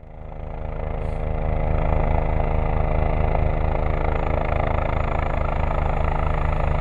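Rescue helicopter running close by, its rotor beating in a steady rhythm over the turbine. It grows louder over the first two seconds, then holds steady.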